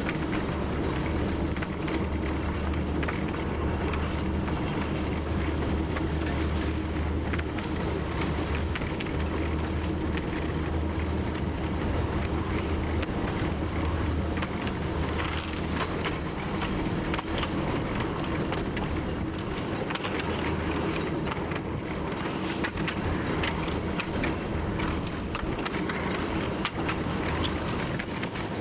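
TU7 narrow-gauge diesel locomotive under way: its V12 diesel engine drones steadily, with the clatter and clicks of the wheels running over the rail joints.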